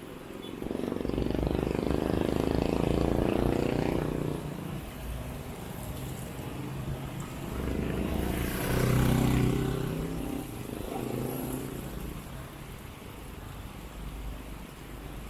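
Motor vehicles passing the bicycle in traffic: one loud pass from about a second in lasting about three seconds, and a second around eight seconds in, over a steady low rumble.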